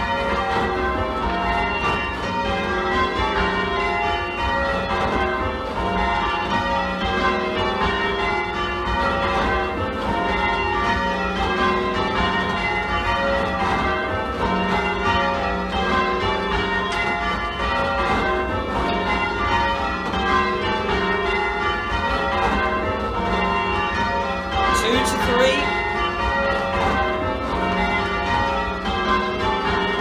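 Ring of eight church bells, tenor about 15 cwt tuned to F, rung full circle in English style, as in rounds and call changes: an even, unbroken succession of bell strikes, the pattern cycling from the small trebles down to the heavy tenor. The trebles, added later and not tuned to match the older back six, sound a little shrill.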